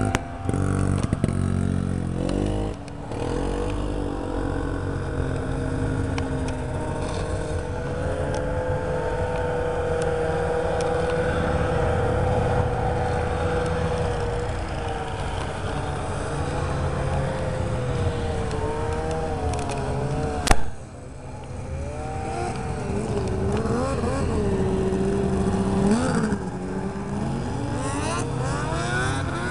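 Snowmobiles driving past one after another, their engines running and each rising and falling in pitch as it goes by. A single sharp knock about twenty seconds in.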